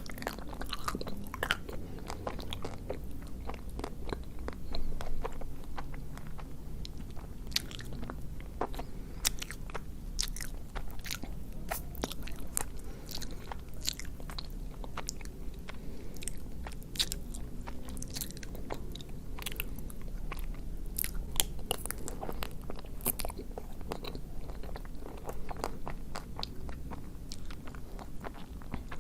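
Close-up biting and chewing of a chocolate-coated ice cream bar, the hard chocolate shell cracking in many sharp, irregular crunches between chews.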